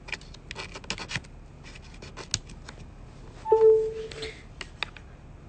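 Close handling noise on a phone's microphone: scattered clicks and rubbing. A brief steady tone sounds a little past halfway and is the loudest moment.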